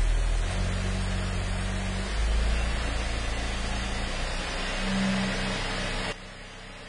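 Car engine running with its speed raised in steps from idle to about 1,250 rpm by a scan tool's engine speed command. The sound drops away sharply about six seconds in.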